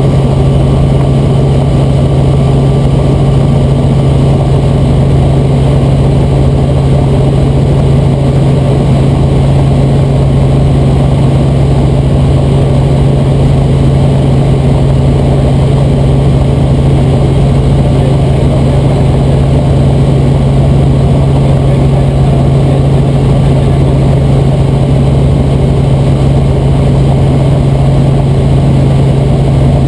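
Robinson R44 Raven II helicopter in cruise heard from inside the cabin: a loud, steady drone of rotors and its six-cylinder Lycoming piston engine, with a strong low hum that never changes.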